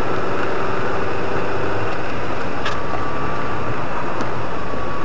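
Steady engine and road noise of a car driving on a snowy road, heard from inside the cabin through a dash cam. A faint high whine joins about halfway through, along with a few light clicks.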